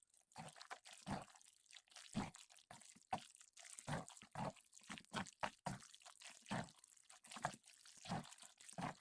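A person gulping down a drink, a string of short swallows about one every half second to second.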